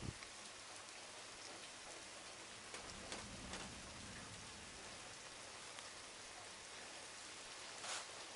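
Steady thunderstorm rain hissing down, with a few louder drops clicking close by, the loudest near the end. A faint low rumble comes in about three seconds in.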